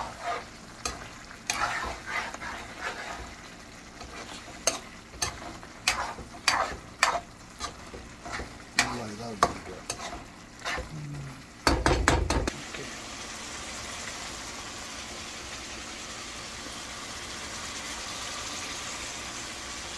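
Chicken in masala sizzling in a kadhai while a ladle stirs and scrapes it, with many sharp clinks. About twelve seconds in there is one loud knock, and after that only a steady sizzle.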